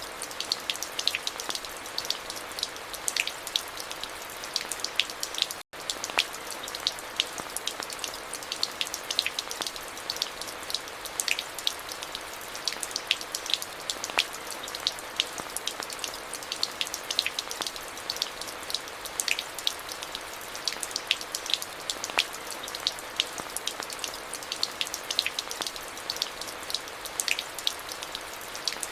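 Steady rain falling, a hiss with many individual drops ticking sharply close by. The sound cuts out for an instant about six seconds in.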